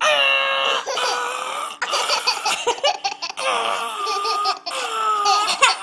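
Baby laughing: a long high squeal at the start, then a run of short high-pitched laughs.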